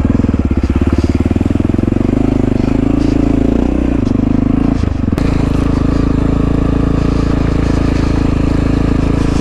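1997 Honda XR650L's single-cylinder four-stroke engine running while the bike is ridden, the revs rising and dipping over the first few seconds, then running steadily. A single sharp knock comes about five seconds in.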